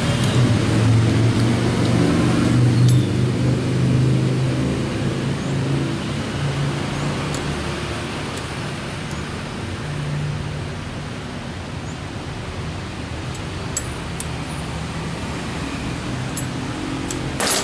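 Oil-less air compressor running steadily, a low hum over a hiss, a little louder in the first few seconds; a few faint light clicks near the end.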